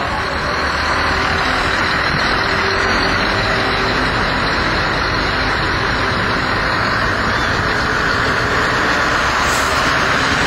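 Diesel engines of a line of heavy lorries running steadily as they crawl past close by, a Scania T-series tractor unit nearest.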